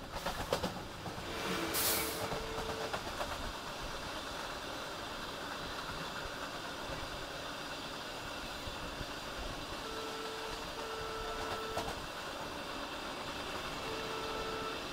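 A train passing close by on the adjacent track, heard at an open coach door: a steady rumble and clatter of wheels on rail, with a loud rush of air about two seconds in. A faint steady tone sounds briefly about four times.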